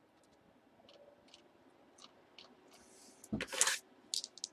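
Faint light clicks, then about three seconds in a short clatter with a low thump as a die is tossed onto a cardboard box lid, followed by a few small ticks.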